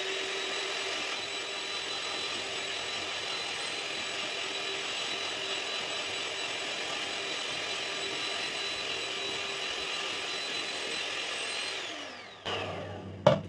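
Bajaj Majesty HM01 electric hand mixer running steadily with a high whine, its beaters whipping chilled butter in a glass bowl. Near the end the motor winds down and stops.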